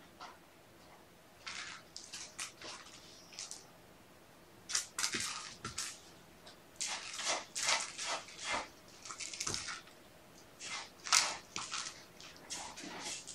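Irregular bursts of rustling and scuffling as kittens play and pounce on the carpet and toys, with quiet gaps in between.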